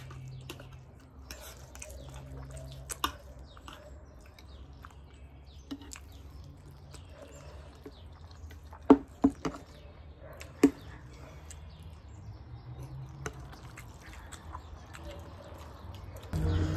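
Close-up eating sounds of black bean noodles (jjajangmyeon): wet slurping and chewing, with a few sharp clinks of metal forks against ceramic plates, the loudest a little past the middle.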